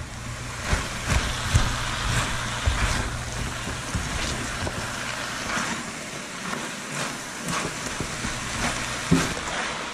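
Moose and vegetable stir fry sizzling in a hot wok as it is stirred with chopsticks, with frequent light scrapes and knocks against the pan. A low steady hum runs underneath and dims for a few seconds near the middle.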